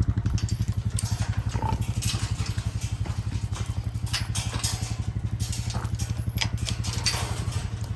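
ATV engine idling with a steady, evenly pulsing low throb, with a few light clatters and knocks over it.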